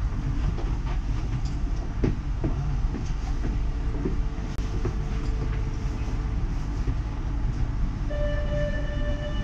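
Uijeongbu light rail train running: a steady low rumble with a few short knocks about two to four seconds in. A steady high electronic tone sets in near the end.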